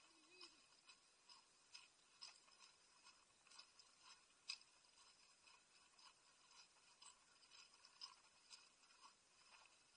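Near silence, heavily muffled by the camera's waterproof dive case, with faint short ticks and scuffs about twice a second.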